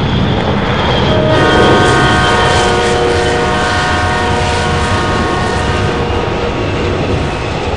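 A held chord of several steady horn tones over a continuous low rumble. The tones come in about a second and a half in and fade out around six seconds.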